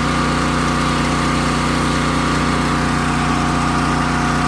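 Engine and pump of a portable hydro-jetter running steadily at constant speed, driving high-pressure water into a clogged leach line.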